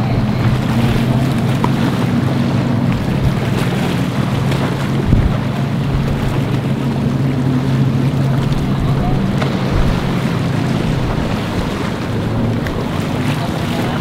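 Boat engines running with a steady low drone, over strong wind buffeting the microphone and the wash of rough water.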